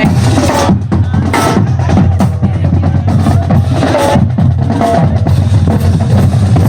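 Two high school marching drumlines playing a loud cadence together, with snare drums, rolls and bass drums.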